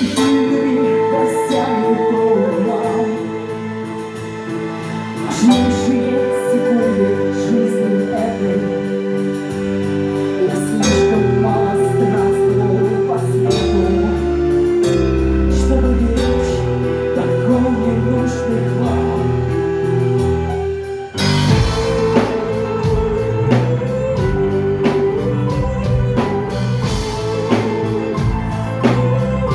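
A song with a singing voice and instruments. About 21 s in, a fuller section with drums comes in.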